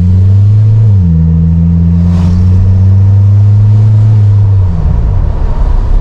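A Suzuki Jimny JB74's 1.5-litre four-cylinder petrol engine is heard through an aftermarket Greddy dual exhaust from inside the cabin with the windows open. The engine pulls up through the revs, drops in pitch at a gear change about a second in, climbs slowly again, then falls off as the throttle lifts near the end.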